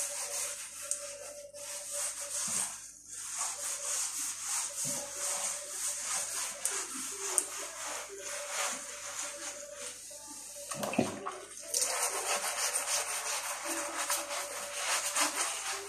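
Scrubbing greasy ceramic kitchen tiles by hand: a continuous scratchy rubbing of quick strokes, with brief pauses about three seconds in and again near eleven seconds. The grease is stuck fast and hard to remove.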